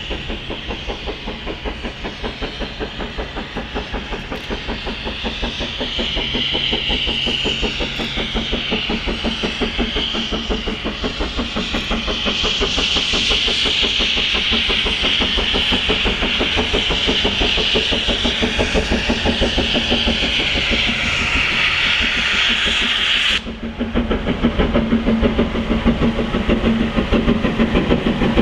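Steam locomotive running with fast, even exhaust beats and a steady hiss of steam over them that grows louder through the middle. About five seconds before the end the hiss cuts off suddenly and the beats carry on louder.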